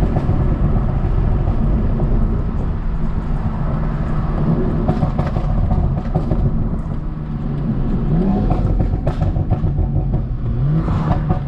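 BMW M340i's turbocharged B58 inline-six running under way, a steady engine drone with road noise. The engine note rises briefly twice in the second half as the car picks up speed.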